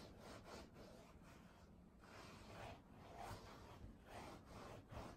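Hands kneading and pressing slime mixed with dry snow powder: faint rubbing swishes, about one a second.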